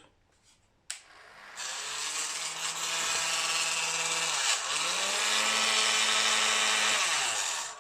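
A KVT TT-2000 2000-watt heat gun switched on, its fan motor spinning up and running with a grinding rattle from inside: a fault of unknown cause. About halfway its pitch dips and then settles higher, and it stops near the end.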